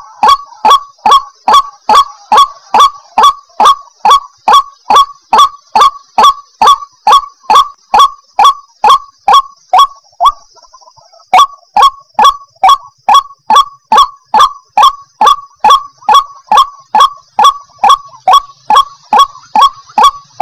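White-breasted waterhen (ruak-ruak) calling: a short, harsh, falling note repeated steadily about twice a second, with a break of about a second near the middle.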